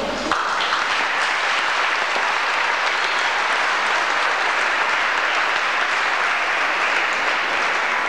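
Audience applauding steadily, starting a moment in and tailing off near the end.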